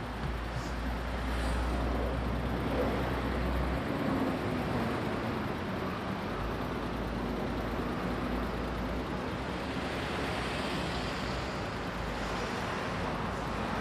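Street traffic noise with a motor vehicle's engine running close by. The low engine sound is strongest for the first few seconds, then eases and comes back in patches.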